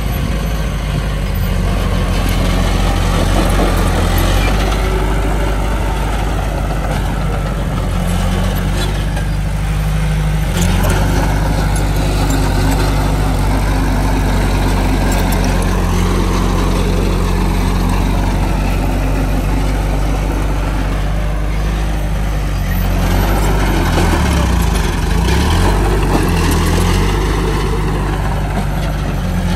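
Heavy diesel earthmoving machinery running continuously. The engine note shifts in pitch about ten seconds in and again a little past twenty seconds.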